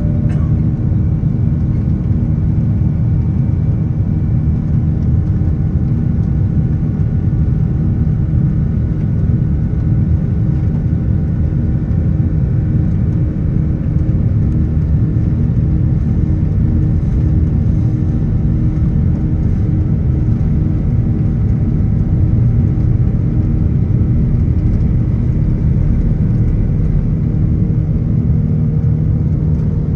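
Airbus A330-900neo's Rolls-Royce Trent 7000 engines at takeoff and climb thrust, heard from inside the cabin: a loud, steady rumble with several steady whining tones on top.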